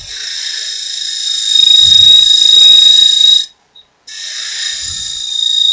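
High-pitched squeal from a turning gouge cutting the thin, spinning wall of an aspen goblet on a wood lathe: the sign that the wall is getting thin. It runs steadily, grows louder for a stretch, breaks off for about half a second around three and a half seconds in, then starts again.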